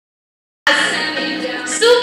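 Music played over a hall's loudspeakers cuts in suddenly after a moment of silence, with a steady held chord; just before the end a woman's voice on a microphone comes in over it.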